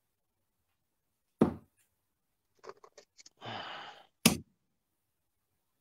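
Steel-tip darts striking a bristle dartboard with two sharp thuds, about a second and a half in and again near 4.3 s, the second the louder. Faint clicks and a brief rustle come in between.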